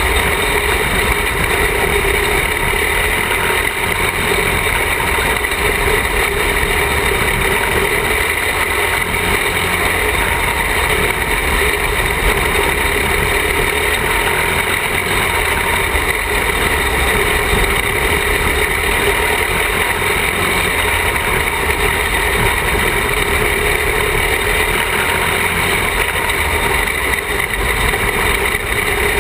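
Small caged dirt-track race car's engine heard from on board, running steadily at speed through laps of the oval.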